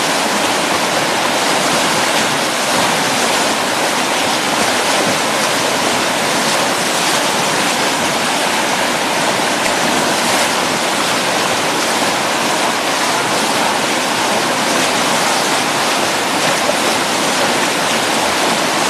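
River whitewater rapids rushing, a loud, steady roar of churning water.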